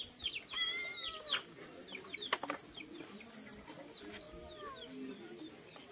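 Birds calling, a steady run of short, high, falling chirps repeated over and over, with a sharp click or two in the middle.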